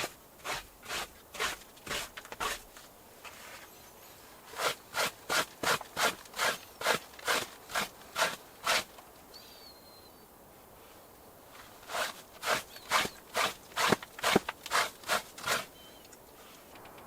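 Rhythmic scraping strokes made by a turkey hunter to draw in a tom, about two a second, in three runs of several strokes each with short pauses between.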